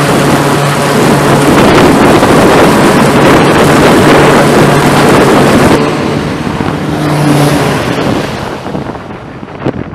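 E-2 Hawkeye's twin turboprops at full power during its catapult launch: a loud propeller drone with a steady low hum. The noise drops about six seconds in and fades away, with wind buffeting the microphone near the end.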